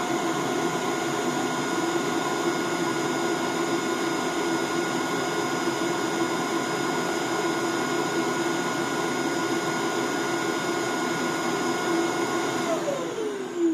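Robot vacuum's self-emptying dock running its suction motor with a steady whine, pulling dust out of the robot's dust bin. Near the end the motor shuts off and its pitch falls away as it spins down.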